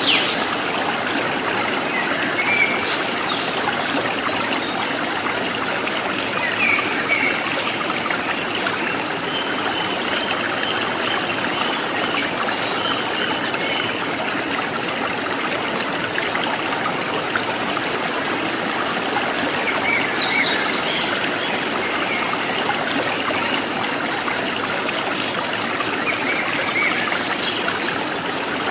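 A forest stream trickling and splashing steadily, with a few short, faint wild bird chirps now and then above the water.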